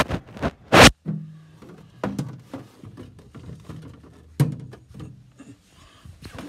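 Handheld phone's microphone rubbed and bumped against a jacket while it is carried: two loud scrapes near the start, then scattered clicks and knocks, with a sharp thunk about four and a half seconds in as drinks are rummaged for at a mini freezer.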